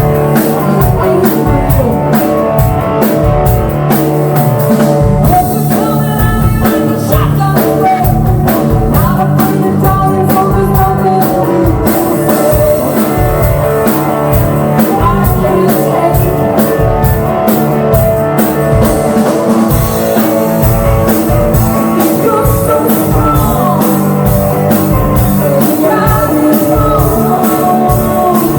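Live rock band playing: electric guitar chords over a steady drum-kit beat, with a singing voice at times.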